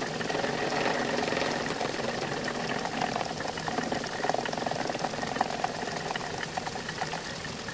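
A machine runs steadily while a 14 mm end mill takes a light side cut along a metal block, with a constant chatter of fine ticks from the cutting edges.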